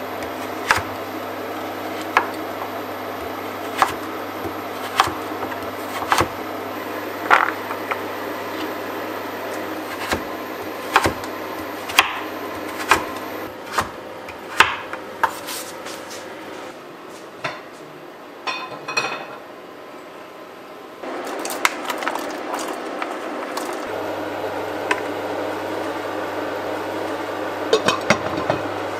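Kitchen knife chopping taro on a wooden cutting board: single sharp knocks of the blade on the board about once a second, with a few lighter clinks past the middle.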